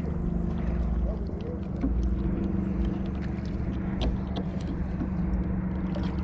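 An engine running steadily with an even, low hum, with scattered faint clicks over it.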